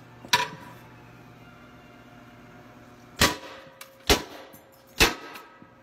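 Hammer blows on a piston sitting in an engine block's cylinder. One lighter knock comes near the start, then three sharp knocks about a second apart, each with a short metallic ring. A faint low hum runs underneath.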